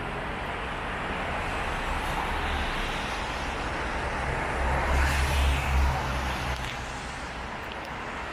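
Wet-street ambience with a steady hiss of rain and traffic. A low vehicle engine rumble swells for about a second and a half, around five seconds in, then fades.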